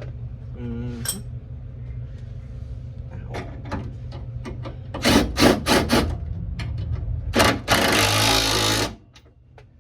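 Tools at work fastening a car's rear sway bar: scattered metallic clicks and knocks, then a fast run of loud clicks, then a power tool running for about a second near the end. A steady low hum runs underneath and stops with the power tool.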